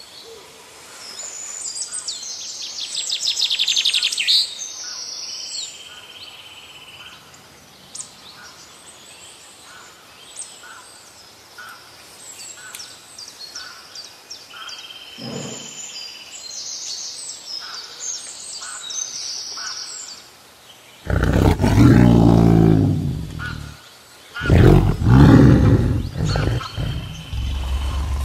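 Wildlife sound-effect track: birds chirping and calling for about twenty seconds, then a big cat roaring loudly in two long bouts near the end.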